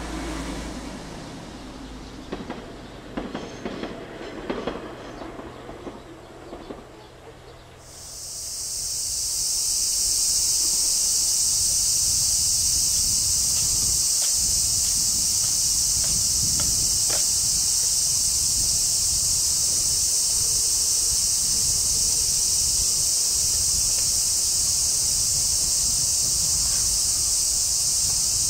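A train clattering over the rails with a low steady hum for the first several seconds; then a loud, steady chorus of cicadas swells in about eight seconds in and goes on without a break.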